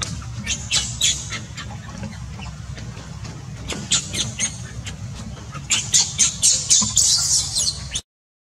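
Baby macaque crying in a series of short, high-pitched squeals. The cries come a few at a time at first, then in a fast, louder run near the end.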